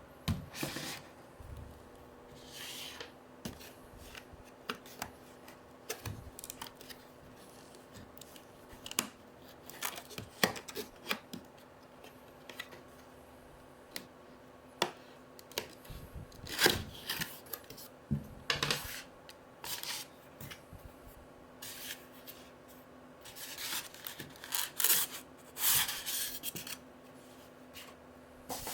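Cardboard box and packaging being handled and opened by hand: scattered clicks and taps with rubbing and scraping strokes, busiest in two stretches past the middle.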